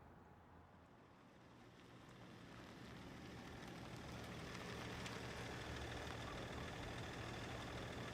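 Low, steady engine rumble of urban traffic, swelling over the first few seconds and then holding steady.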